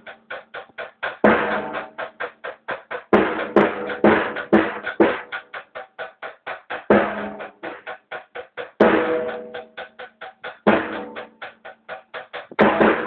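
Drum kit played live: a fast, even run of strokes, about five a second, with a heavier accented hit roughly every two seconds.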